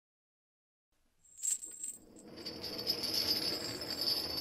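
Metal chains rattling and clinking. A short jingle comes about a second and a half in, then a longer, steadier rattle with a bright ringing edge.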